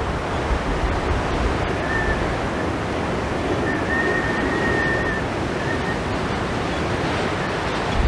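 Rough surf breaking on a rocky shore in strong wind: a steady rushing wash, with wind rumbling on the microphone. A faint thin whistle comes and goes in the middle.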